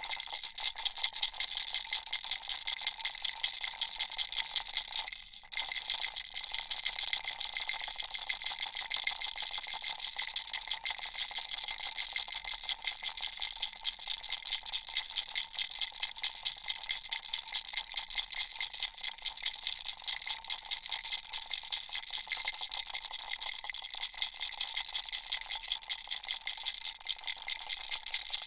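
Baby rattle shaken rapidly and steadily, its beads rattling in quick, even strokes, with a brief break about five seconds in.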